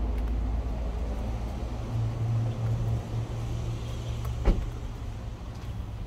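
Idling car engine, a steady low rumble, with one sharp knock a little past the middle.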